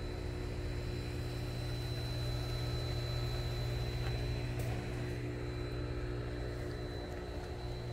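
Steady low machine hum with a thin high whine above it, unchanging throughout.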